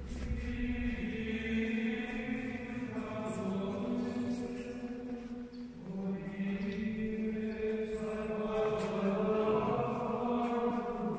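Slow choral chant, voices holding long sustained notes, with a short break between two phrases about six seconds in.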